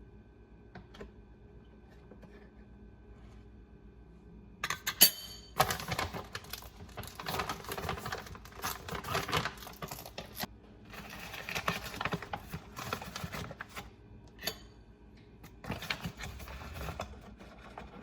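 Household handling sounds: a sharp clink with a short ringing, then bouts of clattering and rustling with scattered clicks.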